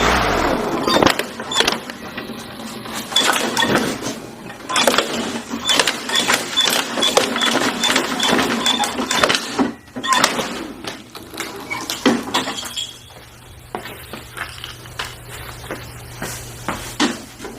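Hard plastic toy being broken up by a lawnmower: rapid, irregular clattering and cracking as pieces are smashed and thrown, easing off in the last few seconds.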